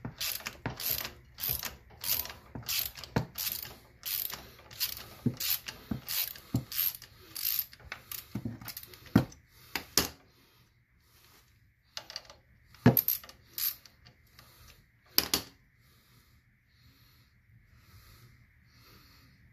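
Hand ratchet clicking in quick back-and-forth strokes, about two a second, as it backs a bolt out of the Hydro Gear ZT-2800 transaxle. After about ten seconds the strokes give way to a few single clicks, then it stops.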